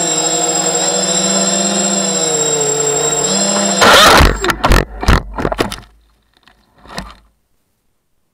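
ZMR 250 racing quadcopter's motors and propellers whining steadily, heard from its onboard camera, the pitch wavering slightly. About four seconds in it crashes into dry leaves on the ground: a few seconds of loud thumps and rattling knocks, then the sound cuts off.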